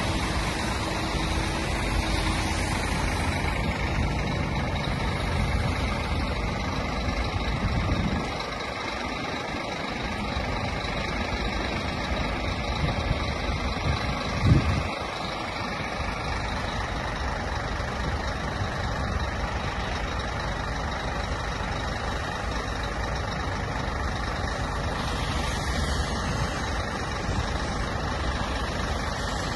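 Scania P380 tow truck's diesel engine running steadily, with one short, loud knock about halfway through.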